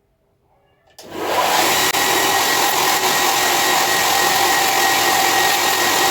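Belt grinder fitted with a medium Scotch-Brite belt switched on: its motor and belt start about a second in and then run loud and steady.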